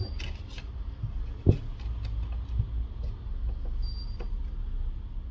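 Handling noises from prying a phone's glass back cover with a suction cup and a thin metal pry tool: scattered small clicks and taps, one louder knock about one and a half seconds in, and two brief high squeaks.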